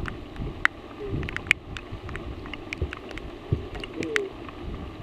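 Raindrops ticking irregularly on the boat and camera housing over a low rumble of wind and water.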